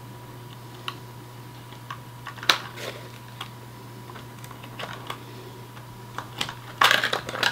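Scattered small plastic clicks and rattles of hands pulling the body clips and lifting the plastic body shell off a 1/18 scale RC truggy. There is one sharper click about two and a half seconds in and a denser clatter near the end.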